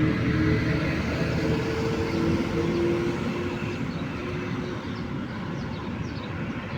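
Steady rumble of a passing motor vehicle, its engine tones wavering slightly, fading a little toward the end. Faint short bird chirps come through in the second half.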